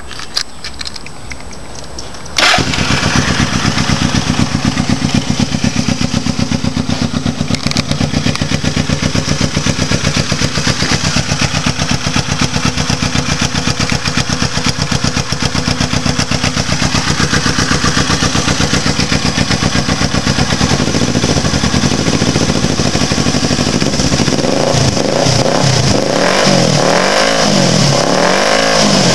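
1982 Suzuki GS300 parallel-twin motorcycle engine on open drag pipes, cranked on the electric starter until it catches suddenly about two and a half seconds in. It then runs steadily and loudly with a rapid, even exhaust beat.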